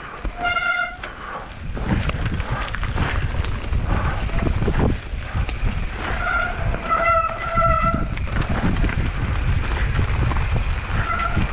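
Mountain bike brakes squealing in short high-pitched bursts: once about a second in, several times in the middle, and again near the end, which the rider puts down to the brakes not working. Under the squeals, tyres rumble and rattle over dirt singletrack, with wind on the microphone.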